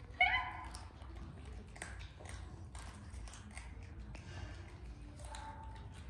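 A young macaque gives one short, high-pitched call that rises slightly in pitch just after the start, and a fainter call near the end. Between them come soft clicks of the monkeys chewing and handling food.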